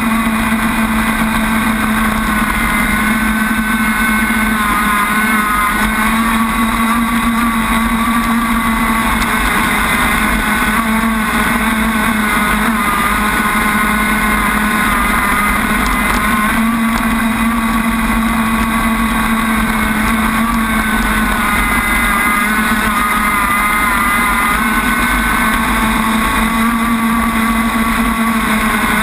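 Enforcer Crackerbox RC boat's engine running at speed, a steady high-revving note whose pitch wavers slightly, over the hiss of spray off the hull, heard from onboard the boat.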